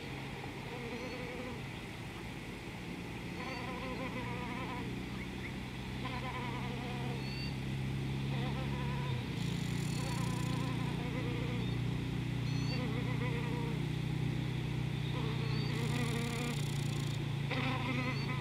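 Insects buzzing close by, the buzz wavering as they come and go, over a steady low hum that grows louder about halfway through. Faint short chirps sound now and then.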